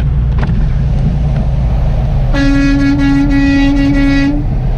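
Semi-truck cab at highway speed: a steady low engine and road rumble, with an air horn blown once, a single steady note held for about two seconds in the middle.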